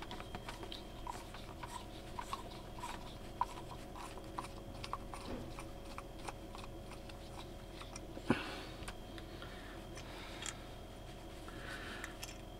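Small clicks and scrapes of a screwdriver prising at the plastic housing of a 12V water pump, with one sharper click about eight seconds in. A faint steady hum runs underneath.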